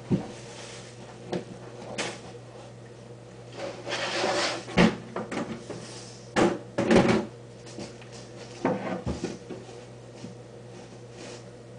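Scattered knocks and bumps, like a drawer or cupboard handled, with a longer rustling noise about four seconds in and a loud pair of knocks around seven seconds, over a low steady hum.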